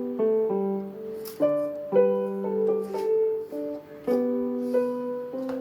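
Background piano music: a gentle melody over held chords, the notes changing about every half second.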